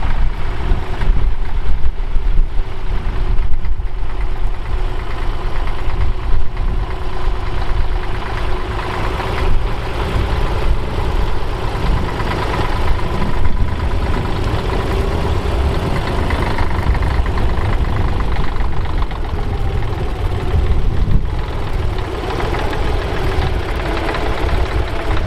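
Bukh Juno tractor's diesel engine running steadily under load while pulling a mounted plough.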